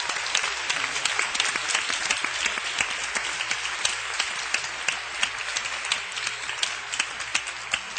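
Concert audience applauding: a dense patter of many hands clapping, with sharper single claps close to the taping microphone. The sound has the dull top end of an audience-taped cassette.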